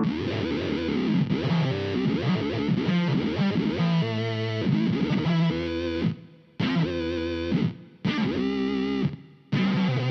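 Rivolta Mondata VIII electric guitar played through an RPS Effects Arcade Machine octave and harmonizer pedal with gate and modulation, giving a dense, warbling pitch-shifted sound. The playing breaks off into short silences three times in the second half.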